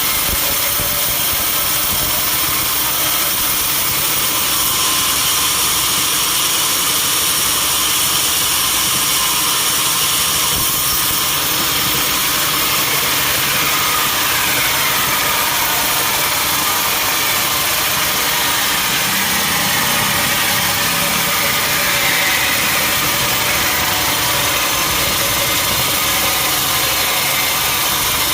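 Sawmill machinery running steadily: an engine-driven saw giving a continuous, even mechanical noise, with faint shifts in pitch partway through.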